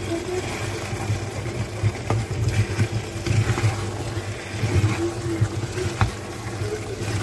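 Wooden spoon stirring yoghurt into spinach-and-potato curry in a clay pot, with uneven wet scraping and two light knocks of the spoon, over a steady low hum.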